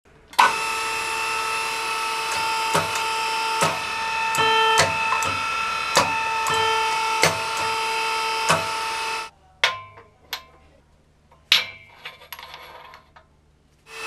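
Hydraulic forging press power unit starting with a click: its electric motor and pump run with a steady whine, with sharp clicks every second or so. The whine stops suddenly about nine seconds in, leaving a few faint clicks and knocks.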